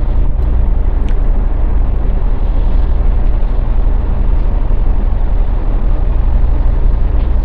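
Cargo ship's diesel engines running steadily: a loud, deep, even hum.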